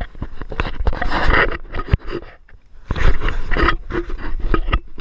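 Footsteps scuffing on a rocky dirt trail, heard through a body-worn camera's microphone, with wind rumbling on the microphone and two longer, louder gusts of noise about a second in and about three seconds in.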